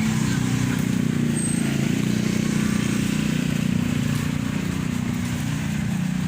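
A vehicle engine running steadily with a low even drone, under a continuous hiss.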